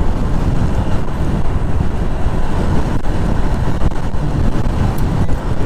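Wind buffeting the microphone and road noise from a motorcycle ridden at highway speed: a loud, steady rush heaviest in the low end.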